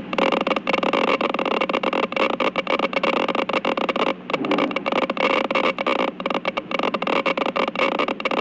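Hospital background ambience: a dense, irregular clatter of rapid clicks over a steady mechanical hum.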